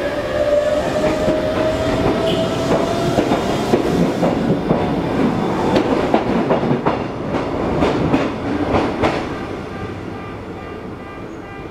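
Iga Railway 200 series electric train (ex-Tokyu 1000 series) pulling out: a motor whine rising in pitch as it accelerates, then a quick run of wheel clacks over the rail joints as the cars pass, fading as the train moves off.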